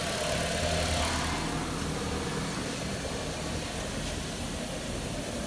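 Nissan Versa running in drive on a lift with a raised wheel spinning freely: a steady engine hum with the whir of the turning wheel. The wheel bearing on this side is judged good by feel.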